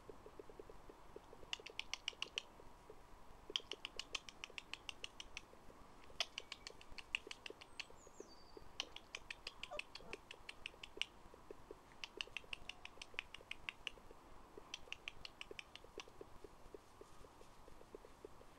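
A bird chattering in bouts of rapid clicks, about seven or eight a second, each bout lasting one to two seconds and coming back every couple of seconds, with one short falling whistle near the middle.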